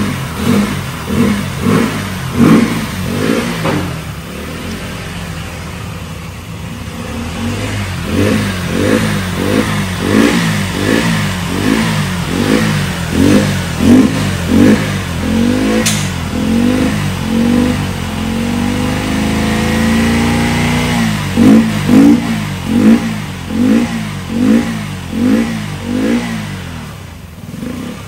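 Motorcycle engine being revved over and over in quick throttle blips, each rising and falling in pitch, about one and a half a second, with one longer, smoother rev about two-thirds of the way through.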